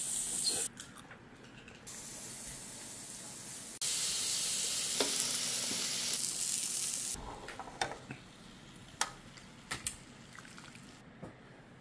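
Food sizzling on an electric grill plate, the hiss dropping away and coming back in stretches, loudest in the middle. Near the end, a few sharp clicks of metal utensils.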